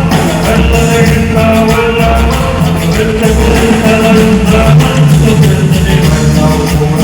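Latin band music with a singing voice over a pulsing bass line and steady beat.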